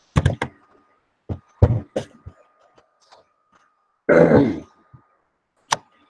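A person clearing the throat in several short bursts, the longest and loudest about four seconds in.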